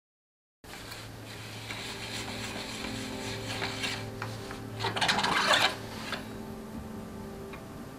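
Bicycle front thru-axle being turned out with a three-way hex wrench: metal rubbing and rasping, with a louder scrape about five seconds in.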